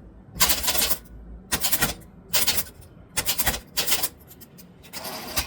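Typewriter being typed on: quick runs of keystrikes in five short clusters, then a longer rasping burst near the end.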